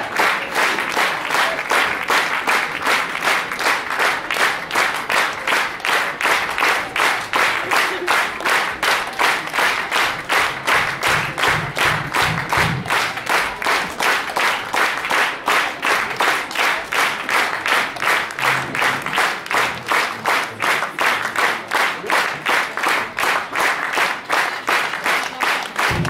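Large audience clapping together in a steady rhythm, about two to three claps a second, calling for an encore.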